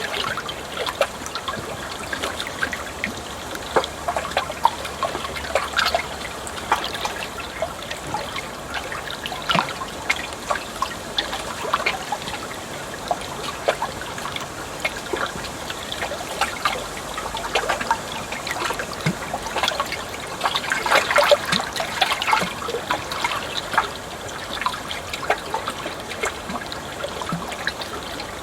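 Water trickling and babbling steadily, with irregular small splashes, a little louder for a couple of seconds about two-thirds of the way through.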